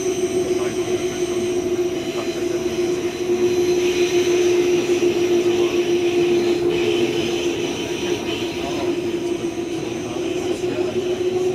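Berlin S-Bahn electric train running, heard from inside the carriage: a steady hum with fainter high whines over the rumble of the wheels.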